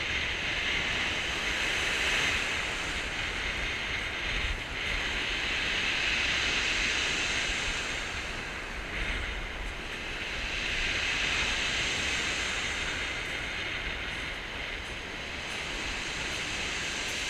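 Surf breaking and washing up a steep shingle beach: a steady rushing hiss over a low rumble, swelling and easing every four or five seconds.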